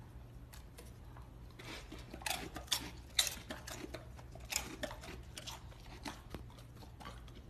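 Faint wet smacking and licking sounds, a scatter of short clicks, as a dog mouths and licks a baby's hand, over a low steady hum.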